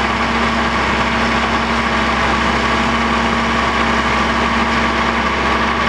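Heavy diesel engine idling steadily at an even, unchanging pitch.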